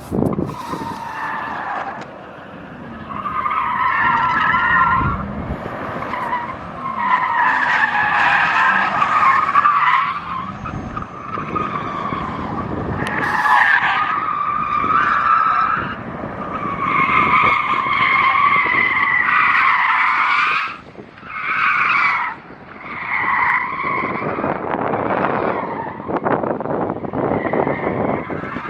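Car tyres squealing through hard cornering, in long wavering squeals that come and go, with two short breaks about three-quarters of the way through.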